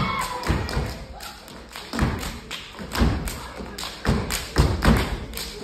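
Step-show stomps and claps on a wooden stage floor, sharp thumps landing about once a second and closer together near the end. Audience cheering and whoops die away at the start.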